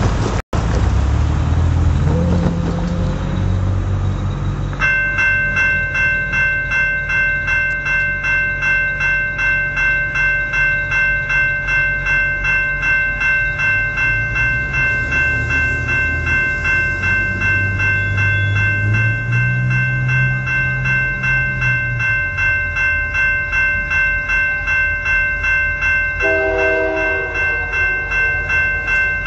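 Railway crossing signal bell ringing in a steady rapid pulse, starting about five seconds in after a few seconds of passing road-traffic engine noise. Near the end the approaching CP SD40-2 locomotive sounds its multi-note air horn, one long blast followed by the start of a second.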